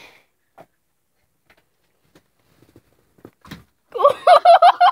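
A few faint clicks and a single knock about three and a half seconds in. Near the end a child's high voice breaks out giggling, in quick repeated pulses.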